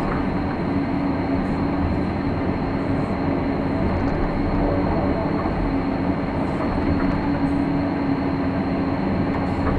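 Excavator's diesel engine and hydraulics running under load, heard from inside the operator's cab, with a steady hum.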